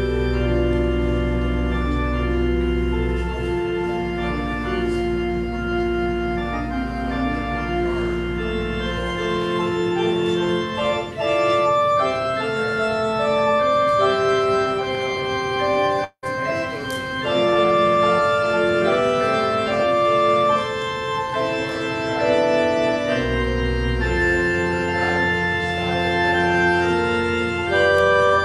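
Church organ playing slow, sustained chords, with a low pedal bass that drops out for a stretch in the middle and comes back near the end. The sound cuts out for an instant about halfway through.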